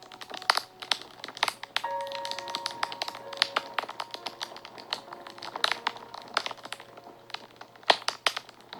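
Wood fire crackling, with irregular sharp snaps and pops, a few louder ones standing out. Soft background music of slow, held notes plays underneath.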